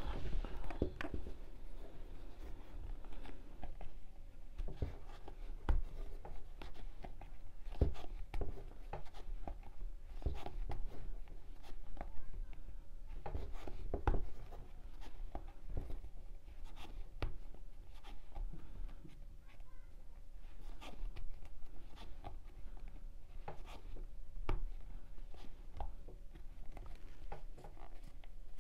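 Crochet hook working macrame yarn: soft rubbing of the yarn and irregular light clicks as stitches are pulled through.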